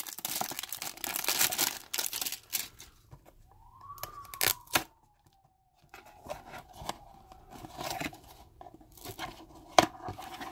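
Clear plastic shrink wrap crinkling and tearing as it is peeled off a small cardboard Funko Mystery Minis box. After that, the box's cardboard flaps are worked open with scattered rustles and one sharp snap near the end.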